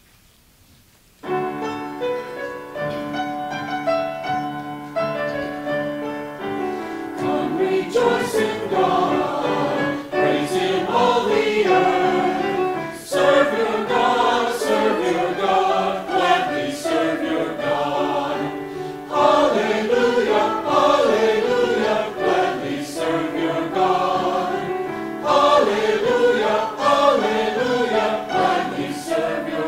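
Mixed church choir singing an anthem with instrumental accompaniment. The music starts about a second in with a short instrumental introduction, and the voices come in about seven seconds in.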